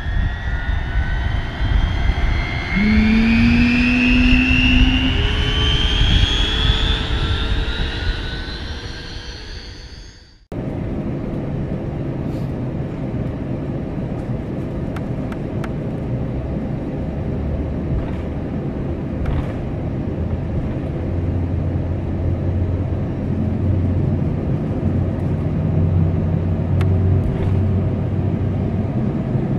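Jet engines spooling up, several whining tones rising in pitch, which cut off abruptly about ten seconds in. Then comes the steady low hum and rumble inside the cabin of an Airbus A320, its CFM56-5B engines running at low power on the runway before take-off, with a few faint clicks.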